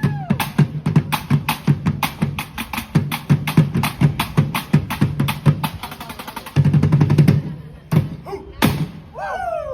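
Music with a fast, driving drum beat, the strikes coming several times a second.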